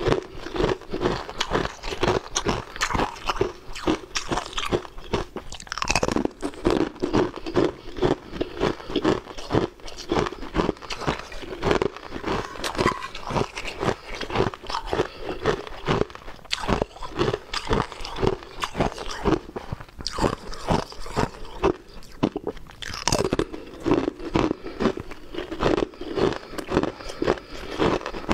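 Frozen ice rings being bitten and chewed, with repeated crunching several times a second without a break.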